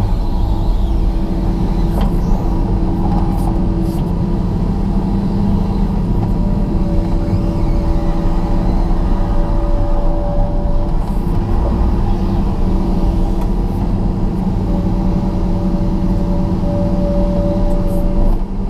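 John Deere 200LC excavator's diesel engine running steadily under load, heard from inside the cab. A steady pitched whine from the hydraulics comes and goes as the boom, arm and bucket work.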